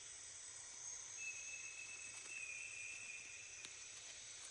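Insects calling steadily at a high pitch, with a second, lower thin tone joining about a second in and fading just past the middle.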